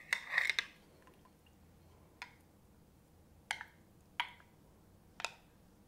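A plastic squeeze bottle of honey squished and sputtering briefly at the start, then four sharp knocks with a short glassy ring as a wooden spatula scrapes thick honey out of a glass measuring cup.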